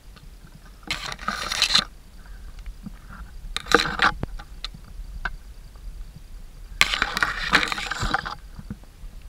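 Scraping and rustling from walking up a loose-stone, grassy mountain path, in three bursts of a second or so, with small clicks of stones in between.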